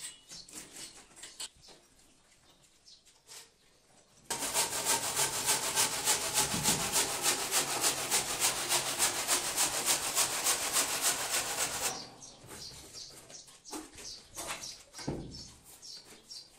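Hand work rubbing over a surface: a few light scrapes and taps, then about eight seconds of fast, even back-and-forth rubbing strokes that stop abruptly, followed by more light scrapes.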